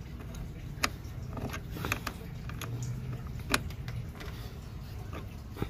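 Irregular metallic clicks and clinks of a wrench working the side-post terminal bolt on a car battery to loosen and disconnect the cable, with a few sharper clicks standing out over a low background rumble.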